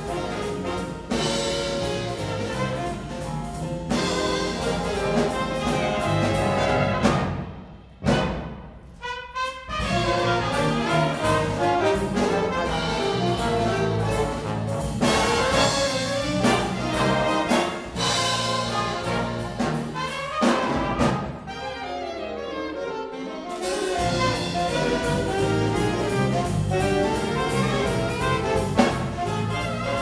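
High school big band playing a swing jazz chart: saxophone, trumpet and trombone sections over electric guitar, keyboard and drum kit. The band cuts off for a moment about eight seconds in, then comes back in, and it thins to a quieter passage a little past twenty seconds before the full ensemble returns.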